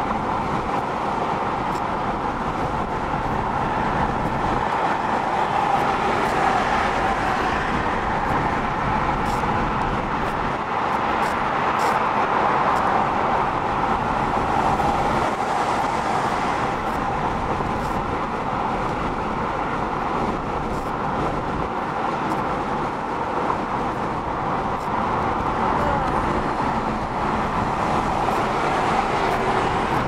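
Steady road and tyre noise with engine hum from a car driving at freeway speed, heard inside the car's cabin.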